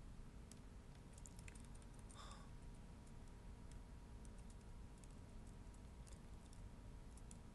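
Faint, scattered clicks of a computer keyboard and mouse, irregular and spread through the whole stretch, over a low steady background hum.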